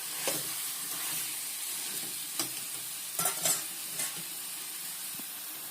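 Chicken pieces sizzling in oil and masala in a kadai, with a steady frying hiss. A spoon stirring and knocking against the pan a few times, most of them in the middle of the stretch.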